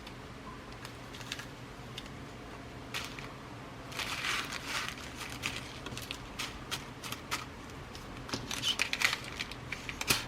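Glass seed beads and their packets being handled and sorted: rustling and small irregular clicks, busiest about four seconds in and again around nine seconds.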